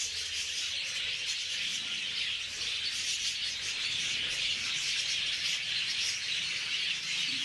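A flock of lovebirds chirping together: a dense, continuous chatter of many overlapping high calls.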